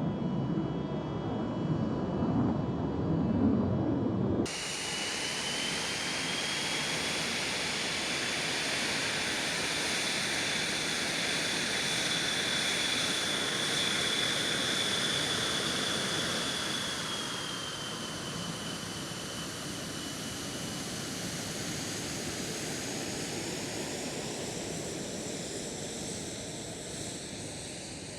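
Jet aircraft engine running: a low rumble, then a sudden change about four seconds in to a steady hiss with a high whistling whine. The whine drops slightly in pitch about two-thirds through, and the sound fades near the end.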